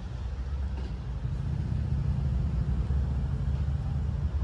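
Wind buffeting the phone's microphone: an uneven, gusting low rumble.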